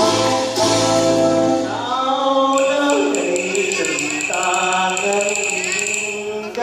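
Cải lương hồ quảng (Vietnamese opera) singing over instrumental accompaniment, the voice holding long notes and sliding between pitches.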